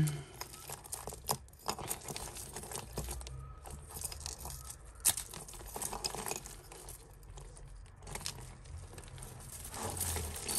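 A tangle of costume jewellery being handled: metal chains and strands of beads clicking, clinking and rustling softly and irregularly as hands pick the pieces apart.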